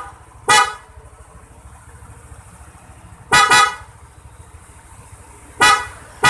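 Aftermarket Boss Evolution horn on a Yamaha NMAX scooter sounded in short, loud blasts: one about half a second in, a quick double blast about three and a half seconds in, and another near the end. Each blast is a bright, brassy tone with many overtones.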